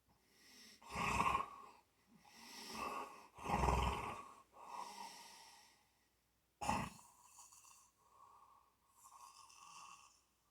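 Someone snoring in sleep: a few loud snoring breaths in the first half, the strongest about four seconds in, then a short sharp burst a little before seven seconds, followed by fainter, quieter breaths.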